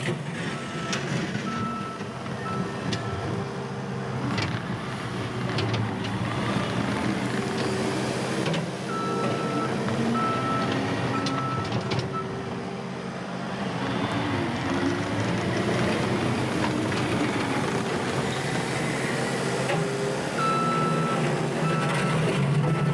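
New Holland C232 tracked skid steer's diesel engine running under work, with its reverse alarm beeping about twice a second in three spells as the machine backs up. Occasional clanks come from the machine.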